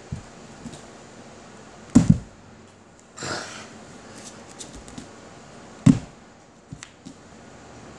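Two thumps about four seconds apart, hands and feet landing on a wooden floor during handstands and backbends, with a brief soft rustle between them.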